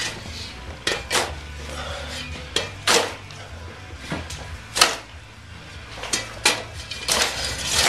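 Shovel blade stabbing into rocky dirt and scraping and clinking on stones: about ten sharp, irregular strikes, some in quick pairs.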